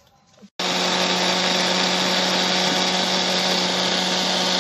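Small electric blender running at a steady speed, grinding a wet spice paste of garlic, shallots, ginger and galangal, with a constant motor hum under the grinding noise. It starts suddenly about half a second in.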